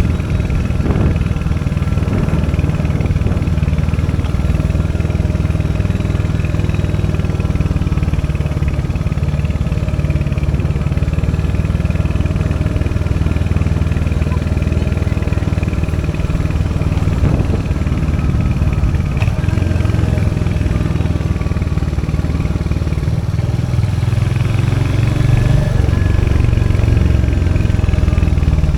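Royal Enfield Hunter 350 motorcycle's 349cc single-cylinder J-series engine running steadily, its exhaust note strongest in the low range, getting a little louder near the end.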